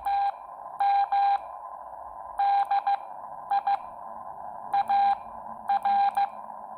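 Morse code sidetone from a Xiegu X6100 transceiver in CW training mode, hand-keyed on a Bencher BY-1 iambic paddle. One steady beep is sent in short and long elements at a slow practice speed, spelling A, M, D, I, A, R: the letters of "Ham Diary" after the H.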